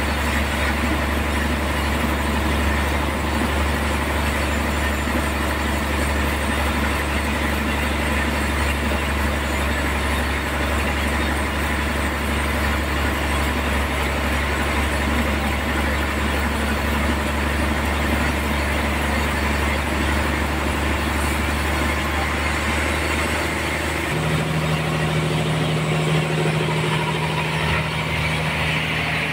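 A sawmill's engine-driven saw running steadily with a loud low drone. Near the end the hum changes, the lowest note dropping away as a slightly higher steady tone comes in.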